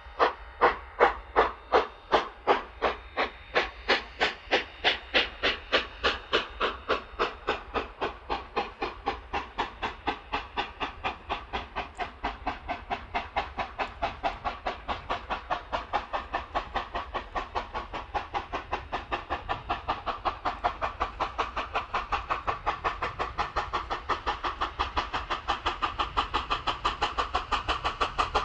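Steam locomotive exhaust beats from a train getting under way. The chuffs start sharp and loud at about two a second and speed up steadily to about four a second as the train gathers speed.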